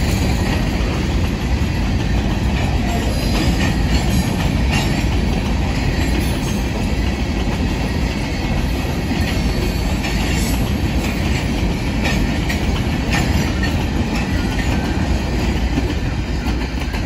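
Empty open hopper cars of a freight rock train rolling past at close range: a steady rumble of steel wheels on rail with repeated clicks as the wheels pass over the rail joints.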